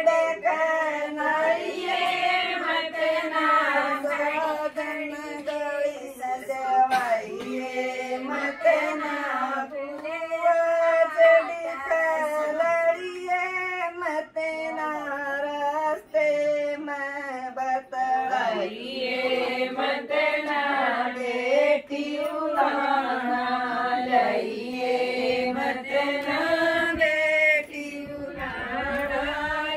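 A group of women singing a folk song together in unison, voices only, with the tune held in long sung lines.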